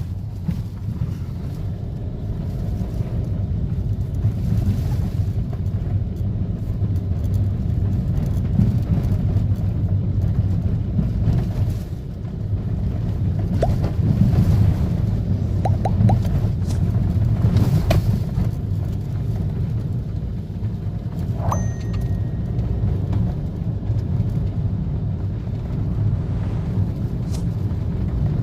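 Steady road and drivetrain rumble inside the cabin of a new-generation Hyundai HB20 on the move, with a few light rattles in the middle. The noise under test is a light vibration from the turn-signal stalk, caused by a loose component inside the stalk.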